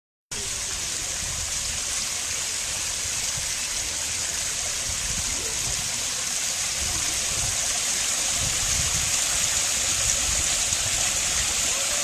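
Garden pond waterfall: water spilling steadily over two tiers of stacked stone into the pool below, an even, constant rush of splashing water.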